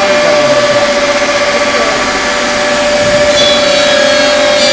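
PVC edge banding machine running with a steady, loud whine; about three seconds in, a higher-pitched whine joins it.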